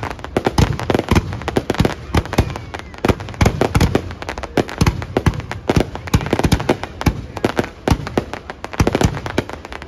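Aerial fireworks display: a continuous, rapid barrage of shell bursts, many bangs a second overlapping with crackling.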